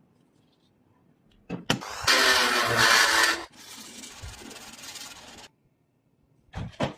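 A car engine cranking and starting: a couple of clicks, a loud burst of about a second and a half, then a quieter steady run of about two seconds that cuts off abruptly, followed by a few more clicks near the end.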